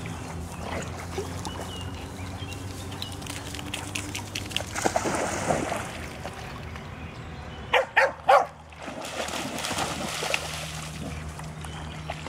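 A dog barks twice in quick succession, with water splashing as dogs run and swim in shallow pond water.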